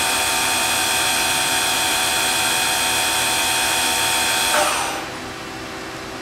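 Citizen B12 CNC Swiss-type lathe running with a loud, steady high whine. About four and a half seconds in, the whine winds down with a quick falling tone, leaving a quieter steady machine hum.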